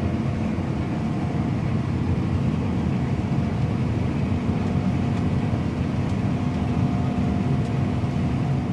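Combine harvester running steadily while combining wheat: a constant engine and threshing drone with a faint steady hum, heard from inside the cab.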